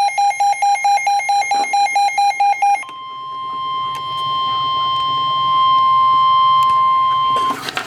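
A weather alert radio's electronic alarm beeping rapidly, about eight pulses a second, stops a little under three seconds in. The NOAA Weather Radio 1050 Hz warning alarm tone follows as one steady tone, swelling in loudness for about four and a half seconds. It signals that a new warning is about to be read.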